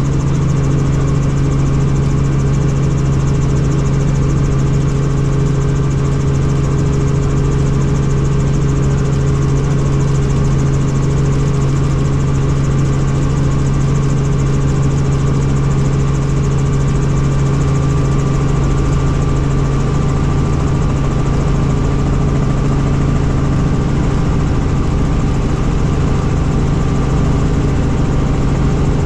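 Helicopter in flight: a loud, steady drone with a strong low hum and several fainter, higher steady tones above it, unchanging throughout.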